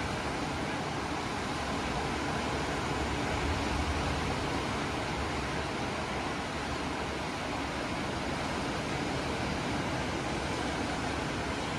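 Ocean surf: a steady rush of breaking waves, swelling slightly a few seconds in.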